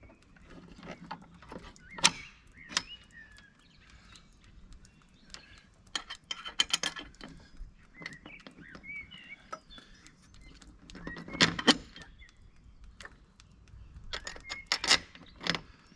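Metal clinking and knocking in short scattered clusters, loudest near the middle and towards the end, as an outboard motor is set onto its transom motor mount and the mount's bolts are fitted.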